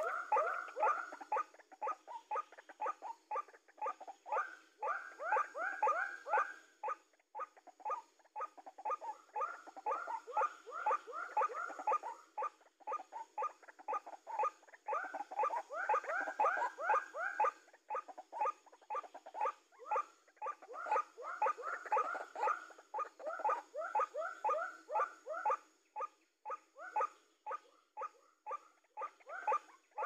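White-breasted waterhen calling: rapid runs of harsh repeated croaking notes, several a second, in bouts of a few seconds with short pauses between.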